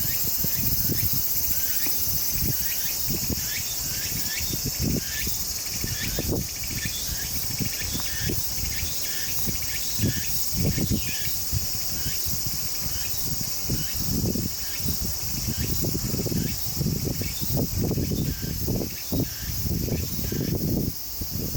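Outdoor insect chorus: a steady high-pitched shrill of insects, with a short chirp repeating about once or twice a second. Low rustling and bumping noises come and go, growing busier in the second half.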